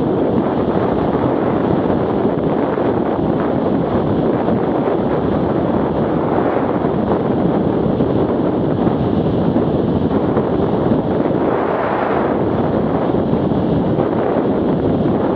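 Steady wind noise rushing over the microphone of a quad ride at speed, with the Arctic Cat 650 H1 ATV's engine running underneath, swelling slightly a couple of times.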